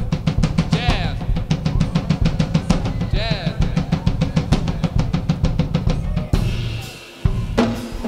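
Live band's drummer playing a fast, even drum roll on the kit, which gives way to a ringing cymbal about six seconds in; the band comes in with sustained notes near the end.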